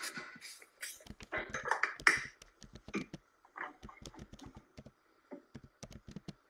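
Cooking oil spritzed from a spray bottle onto a roti on a hot tawa in short hisses, two bursts in the first two seconds, among irregular small clicks and taps.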